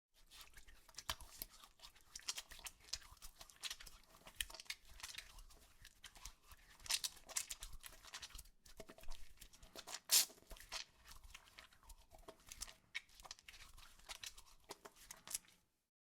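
Close-up rubbing and crackling of hands being worked together, an irregular run of small crisp clicks and rustles with a sharper snap about ten seconds in; it stops abruptly near the end.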